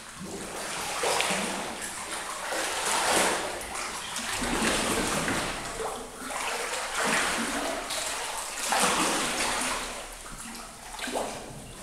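Water splashing and sloshing as a diver swims across the surface of a cave pool, coming in surges about every two seconds with the strokes.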